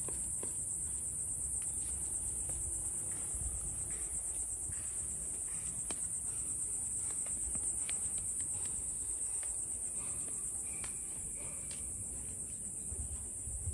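A steady, high-pitched insect chorus, crickets or cicadas, trilling without a break.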